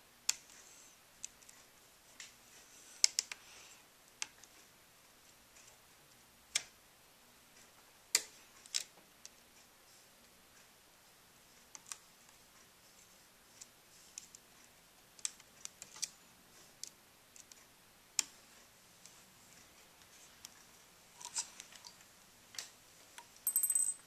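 Scattered light clicks and ticks of a small Phillips screwdriver working the tiny black screws that hold a laptop's LCD panel in its metal side brackets, with a brief rustle near the end.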